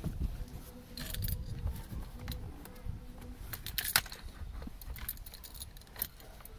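A bunch of car keys jangling and clicking in the ignition lock as gloved hands work at them, with small knocks against the steering column; the sharpest click comes about four seconds in.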